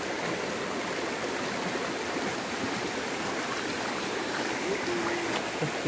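Shallow stream rushing over rocks and stones, a steady, even water sound.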